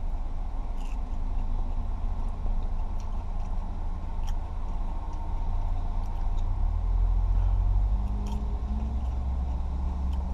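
Steady low rumble of a parked car running, heard inside the cabin, swelling briefly a little past the middle. Faint short clicks of chewing crunchy breaded chicken fries sound over it.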